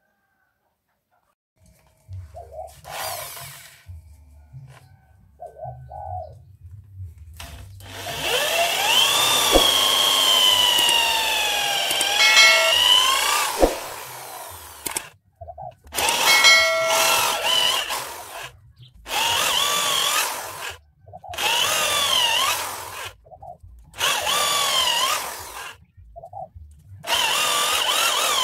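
A handheld electric power tool working wood in repeated bursts of two to three seconds, with one longer run before them. Its motor whine dips and recovers as the tool is pushed into the wood.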